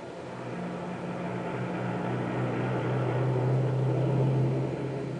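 Refuse collection truck's engine running as it drives past, growing louder as it approaches, loudest a little after the middle, then easing off near the end.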